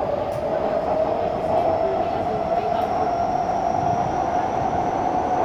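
SMRT North-South Line metro train running between stations, heard from inside the carriage: a steady rumble of wheels on track with a motor whine that rises slowly in pitch as the train gathers speed.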